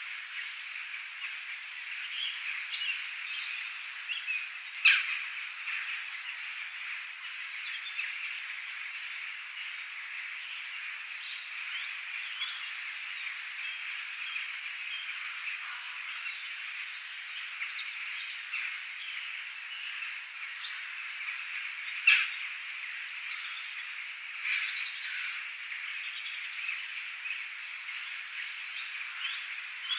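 Birds chirping in scattered short calls over a steady high-pitched background hiss, a wet outdoor ambience. Two sharp, loud clicks stand out, one about five seconds in and one a little past the middle.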